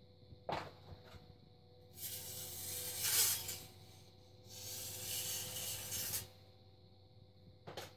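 A tool scraping the clay at the base of a cup on a spinning potter's wheel: two long hissing scrapes of about a second and a half each, with a short swish near the start and another near the end, over the steady hum of the wheel's motor.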